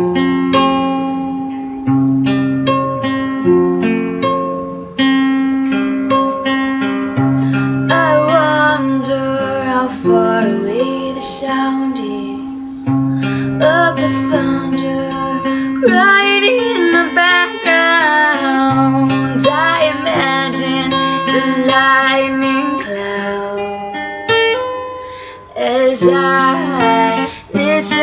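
Acoustic guitar strumming chords, with a woman singing over it from about eight seconds in.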